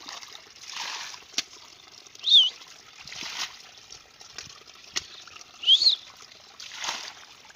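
Muddy water being scooped with a metal bowl and tossed out, a splash about every two to three seconds with a few sharp clicks between. A bird gives a short chirp twice, the loudest sounds.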